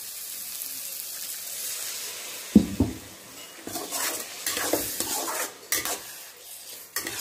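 Tomatoes and spices sizzling in hot oil in a kadhai. About two and a half seconds in, a sharp knock; after it a spatula scrapes and stirs against the pan in quick repeated strokes over the steady sizzle.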